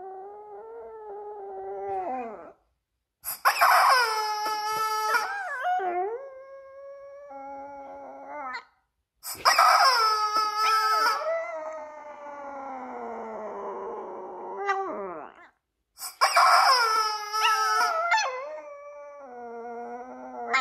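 A Chihuahua howling: one howl trailing off, then three more long howls, each starting loud and high and sliding down in pitch, with short silent breaks between them.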